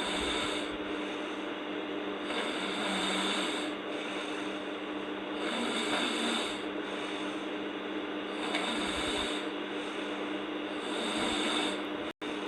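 A sleeping girl snoring, with about five noisy breaths at a slow, even pace of one every two and a half to three seconds. A steady low hum runs underneath, and the sound cuts out briefly just before the end.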